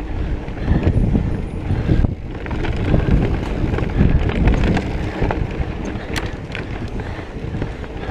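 Wind buffeting the microphone as a mountain bike rides fast along a dirt singletrack, with tyre rumble and short rattling clicks as the bike runs over bumps.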